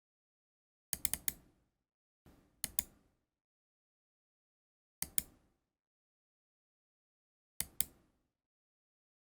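Logitech MX Master 3 mouse button clicking, in four short clusters of two to four sharp clicks each, a couple of seconds apart.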